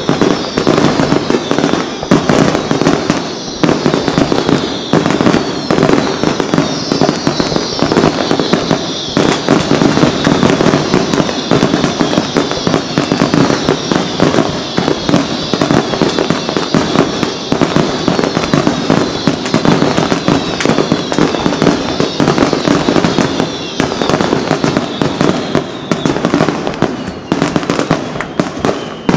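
A fireworks display barrage: many aerial shells bursting one on another in a rapid, unbroken run of bangs and crackle, with no pause.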